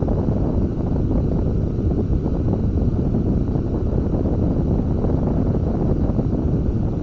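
Steady wind buffeting the camera's microphone on a sailing catamaran: a loud, even, low rush with no distinct events.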